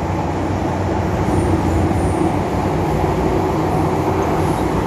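MTR M-Train electric multiple unit running through a tunnel, heard from inside the passenger car: a steady rumble of wheels on rail with a low hum running under it.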